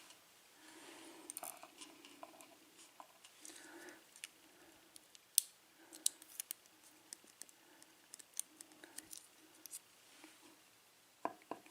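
Faint, irregular small metallic clicks and ticks as the pins of a Dorma pin tumbler lock cylinder are handled and taken out of the plug during disassembly.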